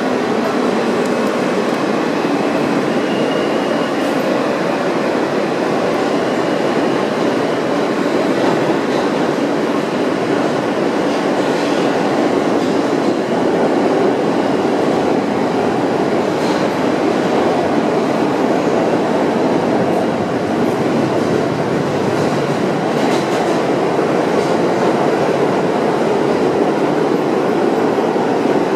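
Steady rumble inside an R160A-1 subway car running on the rails, with a few light clicks of the wheels over the track.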